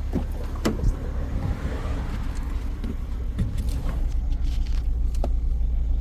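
Ford XR5's engine idling steadily with the radiator cap off, during a check for head gasket failure, with a few light clicks and knocks over it. The idle sounds healthy, with no sign of trouble.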